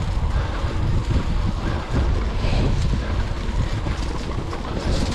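Wind buffeting the microphone: a loud, steady low rumble with a hissy haze above it.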